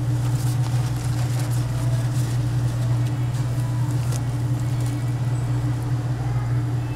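A steady low machine hum, with a few faint clicks over it.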